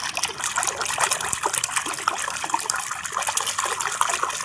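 Water running and splashing as a muddy plastic toy animal is rinsed clean, with many small taps and clicks of the toy being handled.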